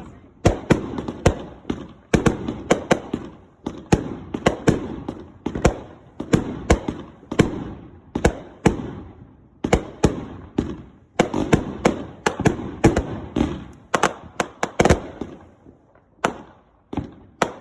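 Consumer firework cake firing a rapid string of shots, about two or three sharp bangs a second, each with a short rumbling tail. The shots thin out to a few scattered bangs near the end.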